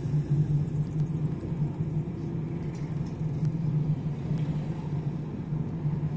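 A car heard from inside its cabin while driving: the engine and tyres make a steady low hum over a rumble of road noise.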